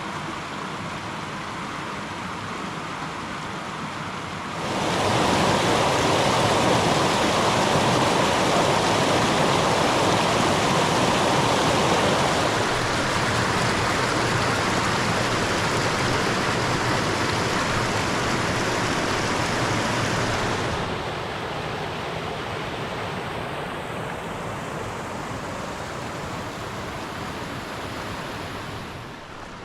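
Creek water rushing over rocks, a steady splashing rush that gets suddenly louder about four seconds in and falls back about twenty seconds in.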